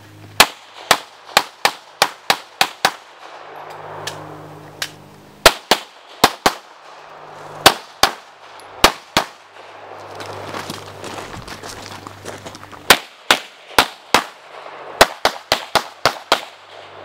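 Handgun gunfire from a practical-shooting stage: about two dozen sharp shots in quick strings, many fired in fast pairs. There are short pauses between the strings as the shooter moves between positions.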